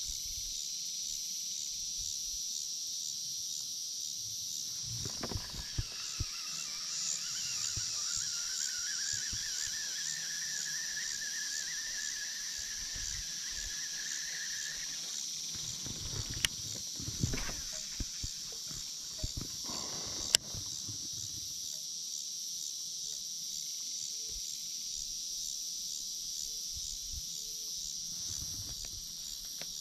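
Outdoor insect chorus, a steady pulsing trill. For several seconds in the first half a faint whine slowly rises in pitch, and in the second half come a few sharp clicks and low knocks.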